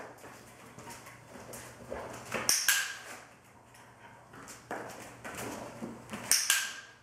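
Dog-training clicker clicking twice, about four seconds apart, each a sharp double click with a short ring after it, marking the Airedale terrier's behaviour for a treat. Softer rustling and shuffling in between.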